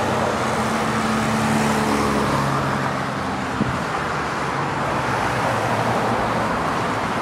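Road traffic passing by, with the low hum of a vehicle engine for the first three seconds or so and a short click about three and a half seconds in.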